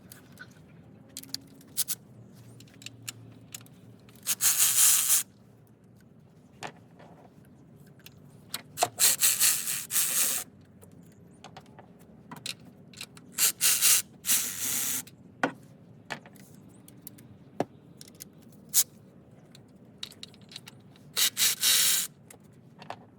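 A ratchet turning a 10 mm deep socket on small engine bolts, in four bursts of fast ratchet rattling about a second long each, with scattered clicks and clinks of metal tools between them.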